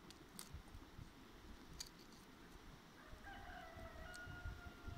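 A rooster crowing faintly: one long call with a slight fall in pitch, starting about three seconds in. Before it, a few light ticks as pomegranate seeds are broken out into a metal bowl, over a low wind rumble.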